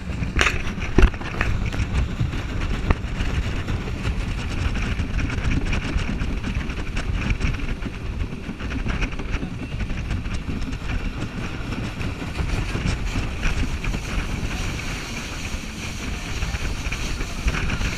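Motorboat running at speed across choppy water: wind buffeting the microphone over the engine's drone and water rushing along the hull. A few sharp knocks come in the first few seconds.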